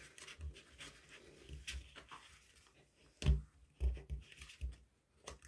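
Colored paper being handled and folded by hand, with faint rustling and creasing. A few soft low knocks come from about three seconds in, as the folded paper is pressed against the table.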